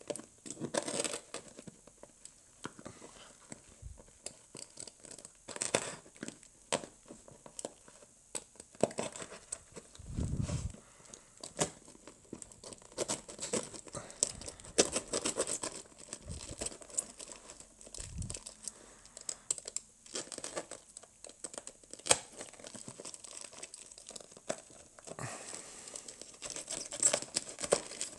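Silver duct tape being cut with a small knife blade and peeled off a taped-up package: irregular crinkling, tearing and scraping, with a few dull knocks.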